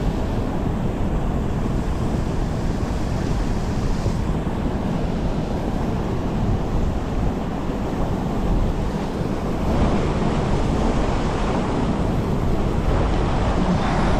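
Gusty wind buffeting the microphone over a steady rush of water from a spillway.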